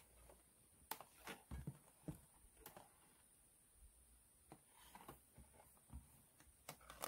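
Near silence, with a few faint, short clicks and knocks of handling scattered through it.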